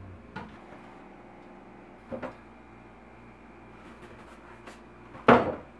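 Kitchen cupboard handling: a soft click, a knock about two seconds in, and a sharp, loud thump near the end as a cereal box is taken from a wooden wall cabinet.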